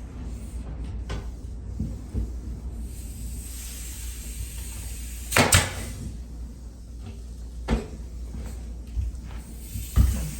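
Wooden knocks and thumps of trim molding being handled and set against a door frame, the loudest a quick double knock about halfway through, over a steady low rumble.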